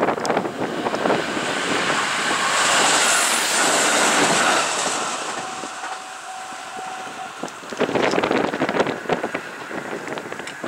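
Diesel train passing over a level crossing: a rushing run of wheel and engine noise that starts suddenly, is loudest about three seconds in, and then fades. The crossing's warning bell rings in steady strokes through the quieter middle, and a rapid clatter of wheels comes about eight seconds in.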